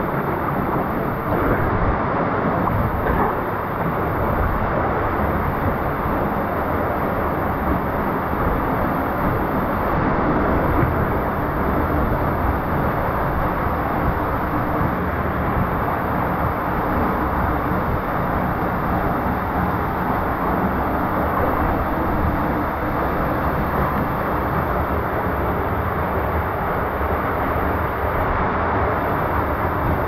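Waterfall pouring into a rocky pool: a steady, unbroken rush of water.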